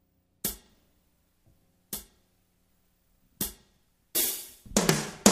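Drum-machine count-in: three sharp hi-hat ticks about a second and a half apart, then a cymbal wash and quick drum hits leading into the music near the end.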